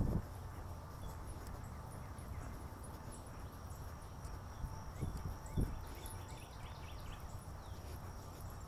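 Footsteps of sneakers walking on an asphalt path, with a few dull thumps standing out at the start and about five seconds in, over a steady low rumble.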